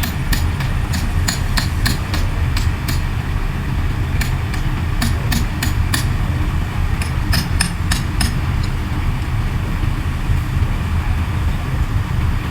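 Large Komatsu bulldozer's diesel engine running with a steady low rumble. For about the first eight seconds an irregular series of sharp metallic clanks sounds over it, then stops.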